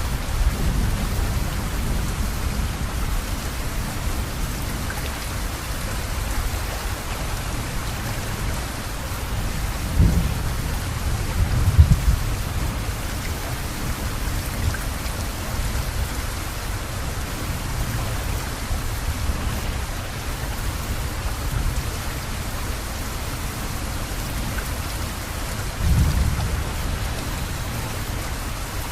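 Steady rain with thunder rumbling low underneath. The thunder swells into louder rolls twice about a third of the way in and once more near the end.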